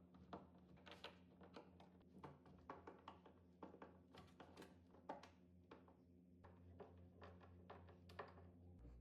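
Faint, irregular light clicks and taps, roughly one or two a second, over a low steady hum.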